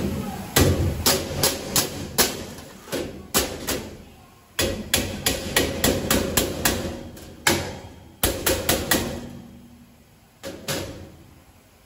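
Sharp metallic blows on a sheet-steel box, each with a short ring, in quick irregular runs that thin out, with one last strike near the end.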